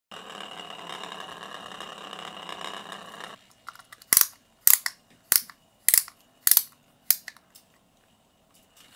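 Toy spinning top whirring steadily on a hard wooden surface, a high steady whine within the whirr, cutting off suddenly a little over three seconds in. About a second later comes a run of about six sharp clicks, a little under two a second.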